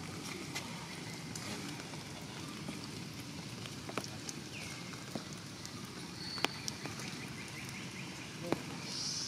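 Steady rain falling on tree foliage, with sharp drips and taps scattered through. A short falling call sounds about four and a half seconds in.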